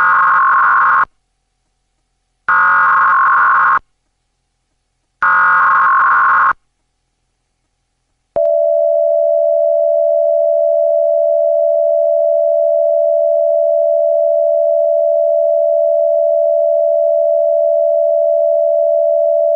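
Emergency Alert System signal, pitched deep: three short bursts of the warbling digital header tones, then, about 8 seconds in, a long single steady attention tone that introduces a National Weather Service warning.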